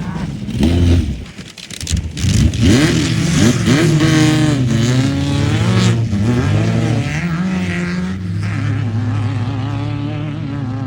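Off-road race truck engine revving hard, its pitch climbing and falling several times between about two and six seconds in, then settling into a steadier drone near the end.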